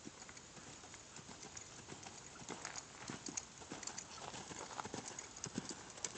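Hoofbeats of a horse trotting on the soft dirt of a riding arena: a run of irregular dull thuds and clicks that grows louder about halfway through as the horse comes closer.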